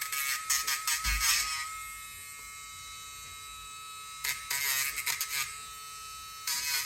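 Electric dog nail grinder running with a steady high whine. It breaks into stretches of rapid rasping strokes during the first second and a half, again around four to five seconds in, and near the end.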